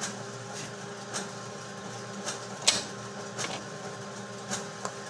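Monarch thermal-transfer RFID label printer switched on and running, before it reports ready: a steady hum with a light click a little over once a second, and one louder click near the middle.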